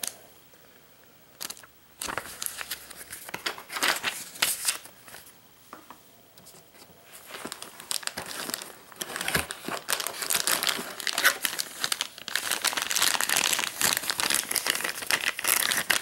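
Clear plastic bag crinkling around a handheld two-way radio as it is handled and lifted out of its cardboard box. The rustling is irregular, starts about two seconds in, and grows louder and busier over the second half.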